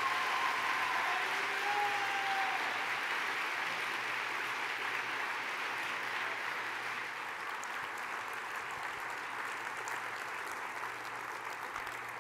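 A large audience applauding steadily, the clapping easing slightly towards the end.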